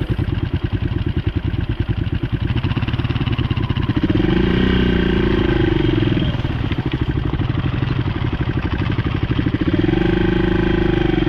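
Single-cylinder dual-sport motorcycle engine running while riding, its revs picking up twice: about four seconds in and again near the end.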